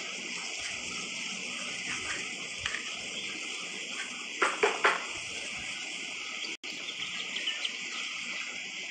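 Steady hiss of background noise, with three short bursts of muffled laughter behind a hand about halfway through; the sound drops out for an instant shortly after.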